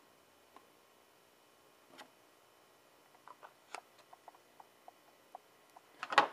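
Small plastic armor pieces being handled by hand: scattered light clicks and taps, with a louder clatter just before the end.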